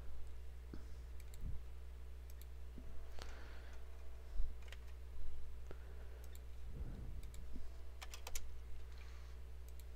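Scattered computer keyboard keystrokes and mouse clicks, irregular and spaced out, over a low steady hum.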